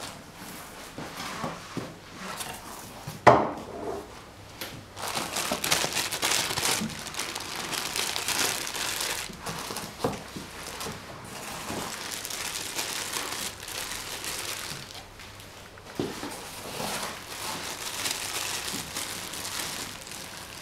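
Plastic bags around monitor cables crinkling and rustling as they are handled and pulled from the cardboard box. One sharp knock about three seconds in is the loudest sound.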